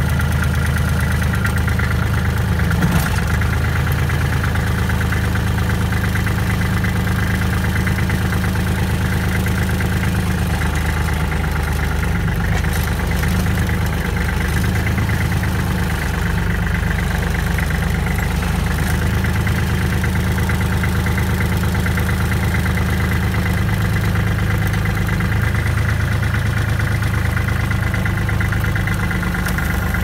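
Kubota L3400 compact tractor's diesel engine running steadily, its note shifting slightly a couple of times as the front loader is worked. A brief knock about three seconds in.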